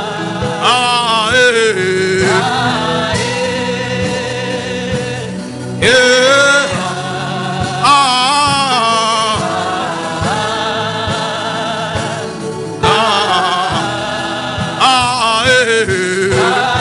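Gospel worship music: a lead voice sings wavering, ornamented lines over held chords and a light beat.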